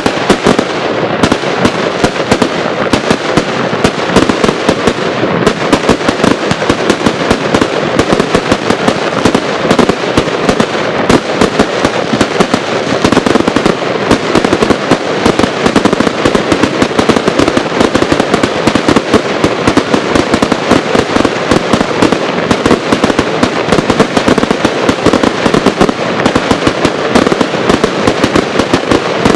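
Professional fireworks display: a rapid, unbroken barrage of bangs from many aerial shells bursting in quick succession, growing even denser about five seconds in.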